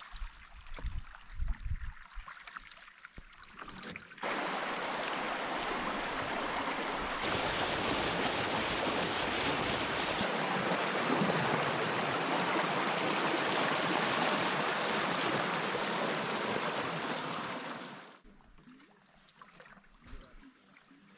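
Small whitewater cascade rushing steadily over rock ledges. It cuts in suddenly about four seconds in and stops just as suddenly about eighteen seconds in. Before and after it there are only quieter, scattered low thumps.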